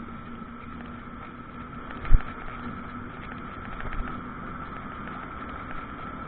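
Cabin noise of a Carver electric tilting three-wheeler on the move: a steady hum of road and drive noise with a thin steady whine above it. A single thump about two seconds in, with a smaller one near four seconds.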